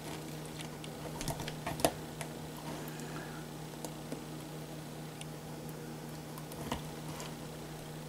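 Small clicks and rustles of hands working a rubber RC truck tire and a plastic super glue bottle, with a sharper click about two seconds in and another near the end, over a steady low hum.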